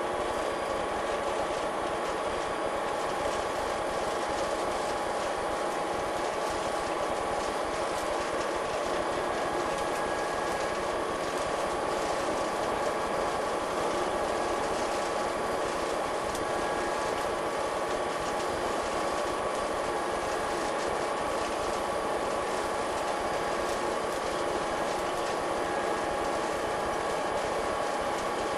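DR class 219 diesel-hydraulic locomotive running steadily under way, heard from inside the driver's cab: a constant engine and transmission drone with a few steady whining tones over the rolling noise of the wheels on the rails.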